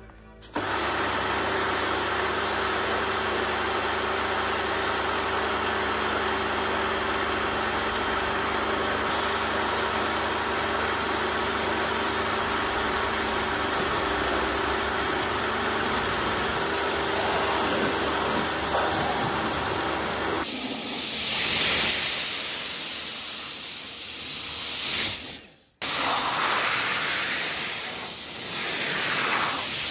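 Electric pressure washer rinsing a car: the motor and pump hum steadily under the spray of the water jet. About two-thirds of the way through the hum stops, and the spray swells and fades as the jet moves. There is a brief break near the end.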